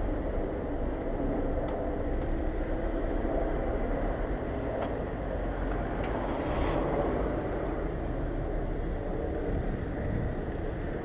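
Steady street traffic noise heard from a bicycle among slow-moving cars: engines and tyres, with a thin high squeal from about eight to ten seconds in.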